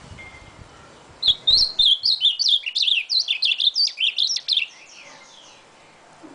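Male ultramarine grosbeak (azulão) singing one fast, warbling phrase of rapid, sliding high notes. The phrase begins about a second in and lasts about three and a half seconds.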